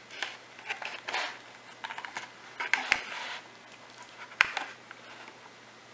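A knife cutting into a pumpkin pie and scraping and tapping against its aluminium foil pan as a slice is pried out: short scrapes and scattered clicks, the sharpest click about four seconds in.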